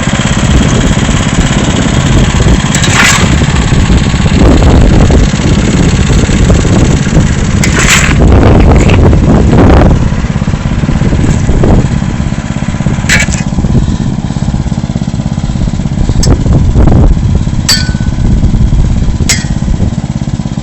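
Lawn tractor engine running steadily and loudly at close range, with several short sharp clicks or knocks over it.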